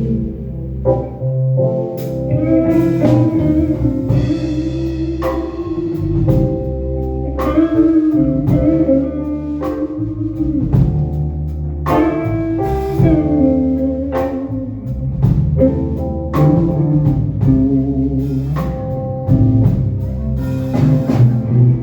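A live band playing an instrumental passage, with guitar over a steady bass line and drum kit hits, before the vocals come in.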